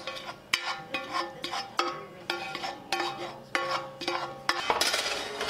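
Spatula scraping and knocking against a skillet as a wet sausage-and-tomato mixture is scraped out of it into a soup pot, a string of strokes at uneven intervals. Background music plays along.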